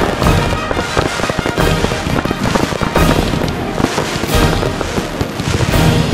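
Rapid, continuous barrage of firework shell bursts, bang after bang with no gaps, with music playing underneath.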